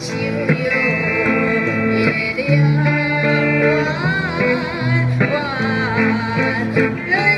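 Busker band: an electric guitar played through a small portable amplifier, with a woman singing a slow melody into a microphone over it. The sung line wavers with vibrato about four seconds in.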